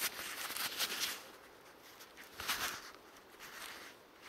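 Soil and forest litter rustling and crunching as it is dug through and sifted by hand in search of a coin. There is a dense patch of small crackles in the first second and another short rustle a little after two seconds.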